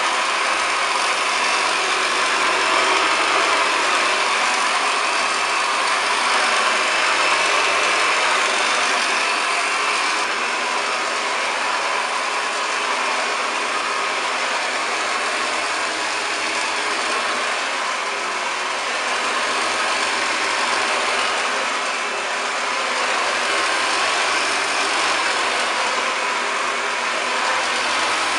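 1929 Hoover Model 725 upright vacuum cleaner running steadily, with a loud, even motor and airflow noise that swells and dips slightly.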